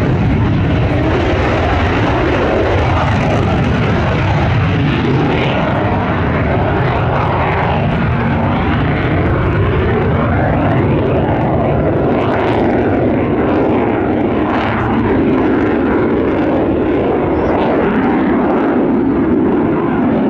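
Lockheed U-2's single turbofan jet engine running loud and steady as the plane makes a low pass and climbs away overhead. Slow sweeps rise and fall through its tone.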